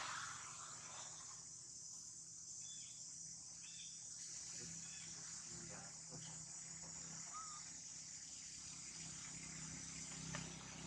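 Steady high-pitched insect chorus, a continuous chirring drone, with a few faint small sounds scattered through it.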